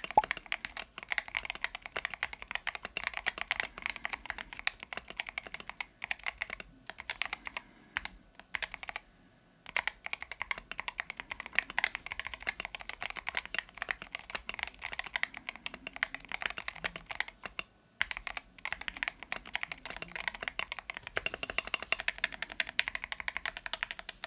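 Typing sound test on a Keychron Q1 HE mechanical keyboard with stock Gateron magnetic Hall-effect switches and newly fitted keycaps: a dense, fast run of keystroke clacks with brief pauses about eight to nine seconds in and again at eighteen seconds.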